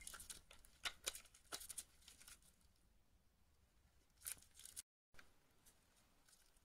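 Needle-nose pliers gripping and twisting a small brass part of an airsoft rifle: a run of faint metallic clicks and scrapes in the first couple of seconds, and a few more about four seconds in.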